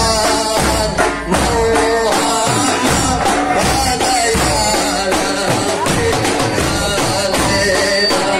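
Several hand-beaten frame drums played together in a steady rhythm, with a group of men's voices singing along.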